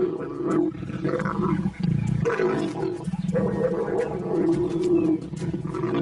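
A pair of leopards growling and snarling while mating, a run of throaty growls with only brief breaks.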